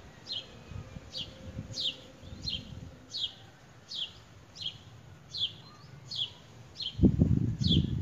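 Canary calling, a short high note sliding downward repeated about every two-thirds of a second. Under it is a low rumbling noise that grows loud about seven seconds in.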